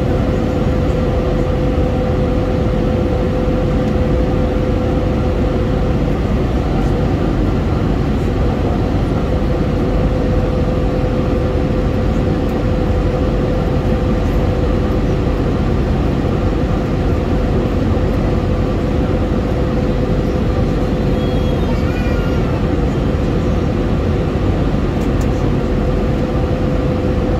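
Steady airliner cabin noise at cruise: a constant low rush of jet engines and airflow, with a droning hum held at one pitch throughout.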